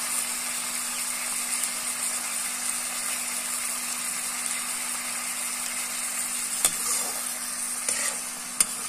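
Chopped onion and tomato masala sizzling in hot oil in a metal wok (kadhai), a steady frying hiss. Near the end a metal slotted spoon stirs it, with a few sharp clicks against the pan.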